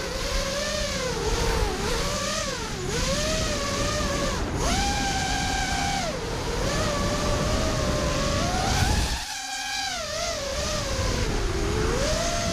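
5-inch FPV racing quadcopter's motors whining over wind rush, the pitch rising and falling constantly with the throttle. A little after nine seconds the rush briefly drops away as the throttle is cut, and the whine then climbs back.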